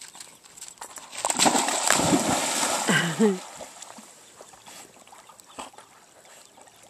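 Black Labrador retriever leaping into a pond: a loud splash about a second and a half in that lasts about two seconds, then faint sloshing as it swims.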